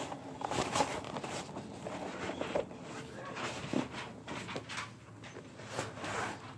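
Notebooks being pushed one at a time into a fabric backpack: irregular rustling, scraping and soft knocks of paper covers against the bag's fabric as it is handled.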